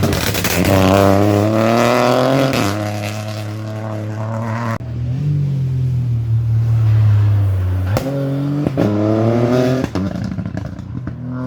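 Rally cars at full throttle on a special stage. The engine note climbs in pitch and drops at each upshift, twice, with a few sharp cracks from the car's exhaust about eight seconds in.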